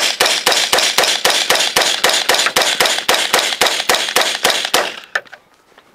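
AR-15 rifle in .223/5.56 fired in rapid semi-automatic succession, about six shots a second, in a steady string that stops about five seconds in, followed by a couple of faint clicks.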